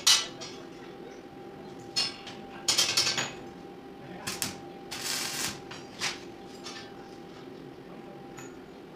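Thin steel bars of a window grill being shifted and set in place by hand on a concrete floor: a series of short metal clinks and clatters over the first six seconds or so, then only light handling, over a faint steady hum.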